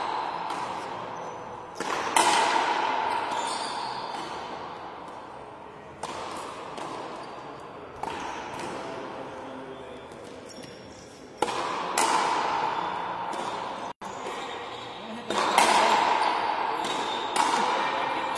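Frontenis rubber ball struck by strung racquets and slapping off the frontón walls during a rally. It is a string of sharp hits one to four seconds apart, each ringing on with a long hall echo.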